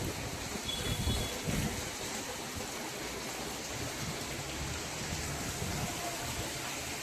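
Heavy rain falling in a steady, even hiss. Low rumbles of wind buffeting the microphone come in the first couple of seconds.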